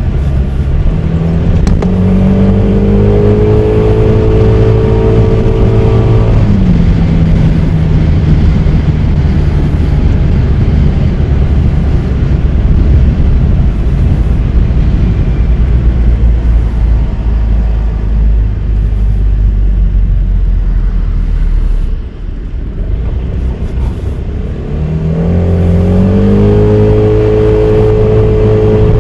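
Honda Forza 300 scooter's single-cylinder engine under way. Its pitch rises as it accelerates, holds steady, falls away about six seconds in as the throttle closes, and climbs again near the end, over a steady rush of wind and road noise.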